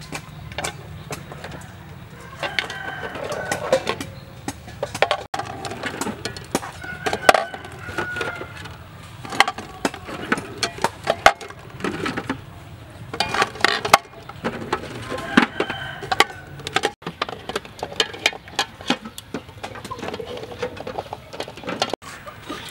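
Chickens clucking and a rooster crowing a few times, over repeated clinks of duck eggs being set into a metal pot.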